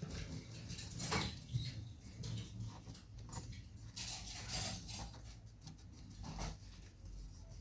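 Faint, irregular rubbing and scratching of a small cloth dampened with isopropyl alcohol, wiping old thermal paste off a laptop processor chip in short, gentle strokes.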